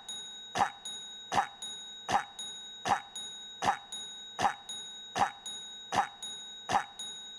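A short cough sound effect repeating in a rigid loop, about one cough every three-quarters of a second, nine times in a row, each cut identical. A faint steady high tone runs underneath.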